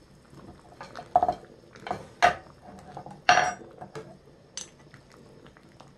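A spoon clinking against a soup pot and bowl about five times, sharp separate knocks with a short ring, as beef and radish soup is stirred and tasted for seasoning.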